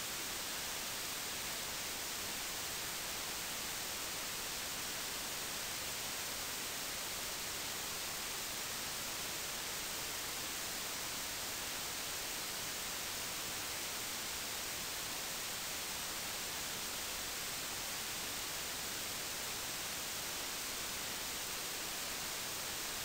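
Steady hiss of recording noise, even and unchanging, strongest in the high treble, with no other sound.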